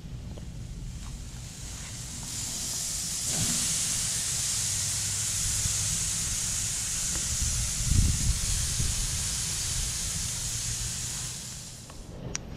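Thin marinated ranchera steak sizzling on a hot charcoal grill grate, just flipped with a fork. The sizzle swells about two seconds in and holds steady, then fades near the end, over a low rumble with a single thump about eight seconds in.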